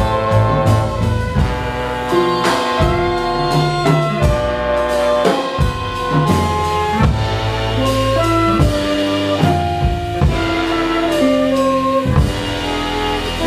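A small jazz band playing live: a horn section of trumpet, saxophone and trombone carries held melody notes over guitars, upright bass and drum kit.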